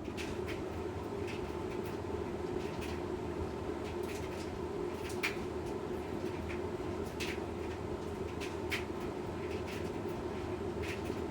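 LG washing machine running: a steady motor-and-drum hum with light, irregular clicks scattered through it.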